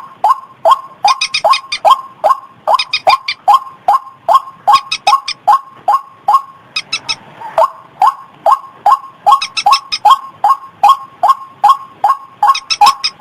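White-breasted waterhen calling, a recording used as a bird lure: a run of short rising notes repeated about three times a second, with groups of higher, clicking notes over them. The calling breaks briefly about seven seconds in.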